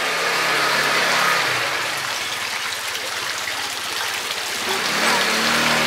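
Water splashing and pouring steadily from a decorative street fountain, with jets spouting from figurine statues into its tiered basins.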